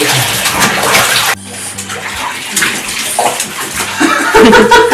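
Water splashing and sloshing in a bathtub as hands scoop it over a dog to rinse it. The splashing stops abruptly about a second in. A loud, brief pitched sound comes near the end.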